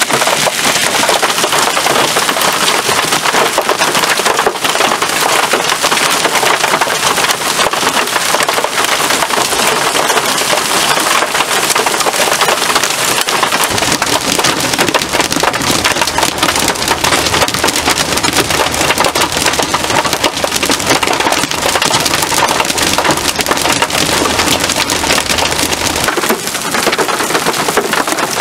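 Heavy thunderstorm rain pelting down in a dense clatter of sharp impacts. A low rumble comes in about halfway through and cuts off a couple of seconds before the end.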